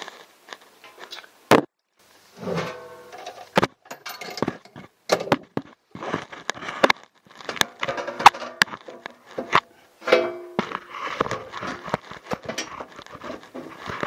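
White plastic front cover of a Bosch PowerStar electric tankless water heater being fitted back over its mounting bracket: irregular knocks, clicks and scrapes of plastic against metal. There are a few short squeaky rubs, the plainest about ten seconds in.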